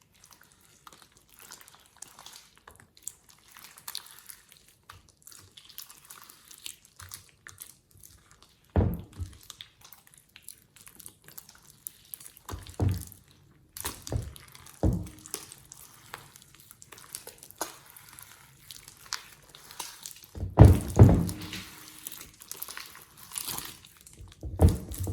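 Slime being handled: soft wet crackling and squishing, with a few louder squelching knocks about a third of the way in and a louder run of them near the end.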